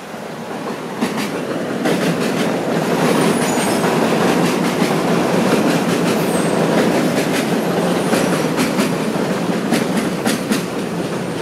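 Train running past: a rumble that swells over the first few seconds and then holds, with wheels clicking over the rail joints, the clicks coming faster near the end.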